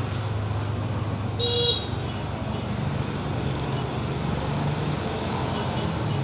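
Corded electric hair clippers buzzing steadily as they cut over a comb, over street traffic noise. A car horn toots briefly about a second and a half in.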